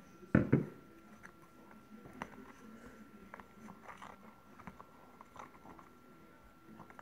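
Two sharp knocks about half a second in, then light, scattered clicks and taps of a spoon stirring a pink liquid mixture in a clear plastic tub.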